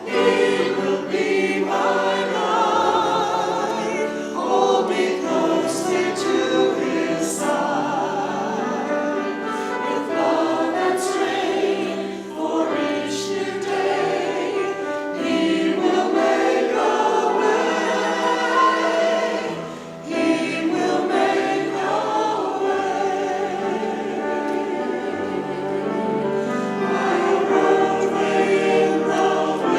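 Choir singing a sacred song, voices holding long notes with vibrato. Brief pause for breath about twenty seconds in.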